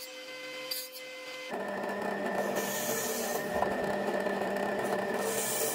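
Table saw running, with a short sharp cutting sound about once a second as small wooden pieces are cut. About one and a half seconds in it gives way to a drill press motor running while its twist bit bores into a pine board, with two bursts of louder chip-cutting hiss as the bit bites.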